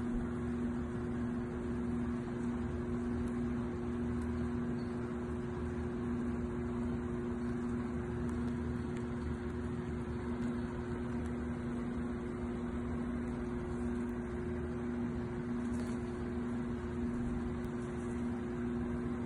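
A steady mechanical hum with two held tones over a low, even noise, unchanging throughout, with a few faint ticks.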